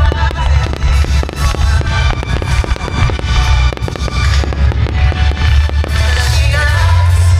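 Music over loudspeakers with a strong bass, as fireworks burst and crackle in quick succession throughout.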